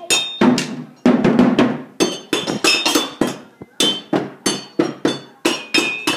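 Child drumming with sticks on small metal pots and lids used as a makeshift drum kit: quick, uneven strikes, several a second, each with a clanging metallic ring.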